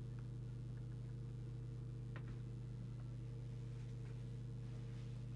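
Steady low electrical hum with a few evenly spaced overtones, and one faint click about two seconds in.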